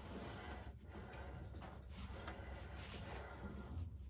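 Faint scrapes and small clicks of a hand working the engine oil dipstick in its tube on a 1951 Chevy pickup, during an oil-level check.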